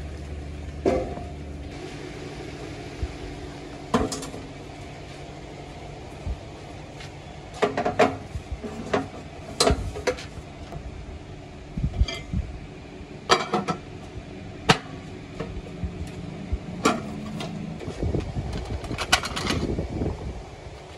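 Irregular metallic clanks and knocks, some with a short ring, of sheet-metal exhaust silencer parts being handled and struck. A low steady hum runs underneath and stops about two seconds in.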